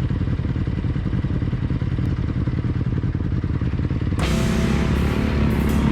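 A motor vehicle engine running with an even, steady pulse. About four seconds in, loud music with a heavy beat comes in over it.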